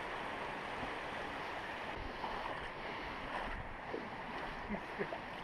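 Steady rush of a small creek's flowing water, with a few faint distant voice sounds near the end.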